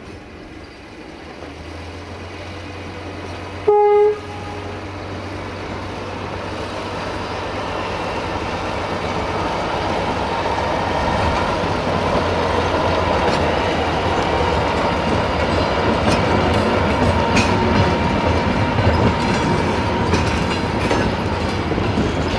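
Marub UAM-215 track maintenance vehicle shunting a railway crane wagon: its engine running with a steady low hum, one short horn toot just before four seconds in, then the rumble and wheel clicks over the rail joints growing louder in the second half as it draws near.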